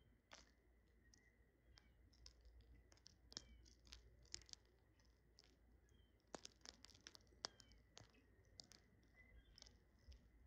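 Small birds pecking at food: irregular faint clicks and taps, several a second and bunched in places, with a few faint short high chirps.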